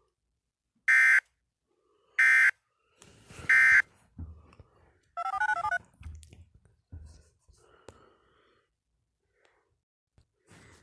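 Emergency Alert System end-of-message data bursts: three short, loud digital screeches about a second apart, signalling the end of the alert. Fainter scattered noises follow, including a brief warbling tone a few seconds later.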